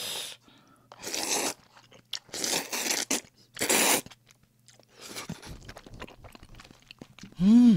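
Noodles from a bowl of cream jjamppong slurped loudly four times in quick succession, then chewed with soft wet clicks. Near the end comes a short vocal hum that rises and falls in pitch.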